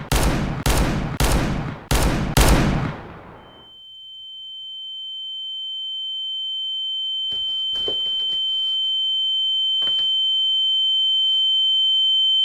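Five gunshots in quick succession, about one every half second. Then a steady high-pitched ringing tone that slowly grows louder, the film's ringing-ears effect after gunfire, with a few faint knocks under it.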